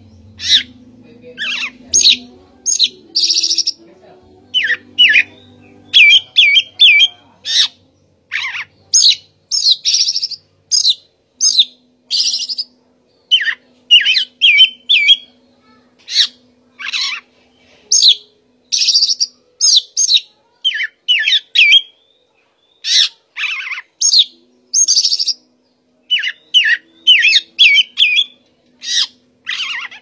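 Male Oriental magpie-robin singing a long, varied song: loud short whistled and sweeping notes mixed with harsh rasping notes, in quick phrases with brief pauses between them.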